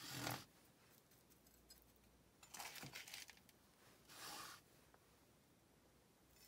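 Metal hand trowel scraping and scooping coarse, grainy potting mix in a plastic bowl, in three short scrapes. The loudest comes at the start, a rougher, broken one about two and a half seconds in, and a shorter one just after four seconds.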